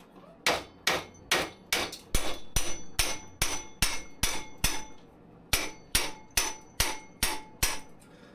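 Hammer blows on metal, about seventeen sharp strikes at roughly two and a half a second, each with a short ringing tone, with a brief pause about five seconds in: hammering on a stuck part of the bicycle's crank area that will not come free.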